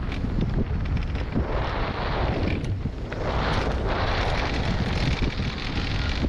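Mountain bike descending a dry dirt trail, heard from a helmet-mounted camera: steady wind rumble on the microphone, with tyres crunching over loose dirt and gravel and the bike rattling over bumps. The tyre hiss swells twice, around two and four seconds in.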